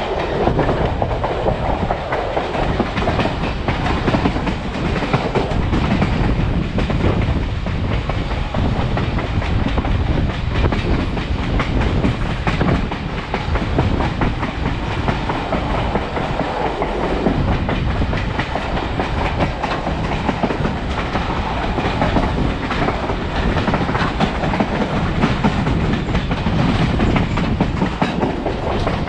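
A passenger coach rolling along the track at speed: a steady rumble of wheels on rail with a constant rapid clicking clatter.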